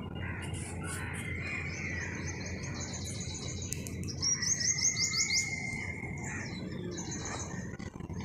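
Small birds chirping, with a quick run of sharp repeated chirps about four seconds in that is the loudest part, over a steady low background rumble.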